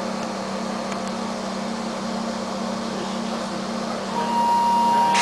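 Steady electrical hum inside a standing EN57 electric multiple unit, with an even background rush. About four seconds in, a steady high tone starts and the sound gets louder.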